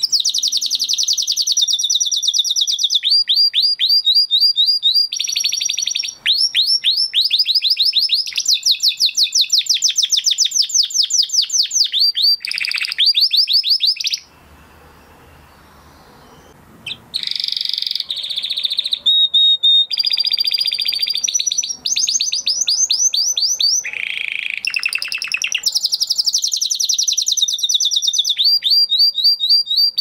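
Crested Spanish Timbrado canary singing: long, fast trills and rolls of rapidly repeated high notes, with a pause of about three seconds in the middle before the song starts again.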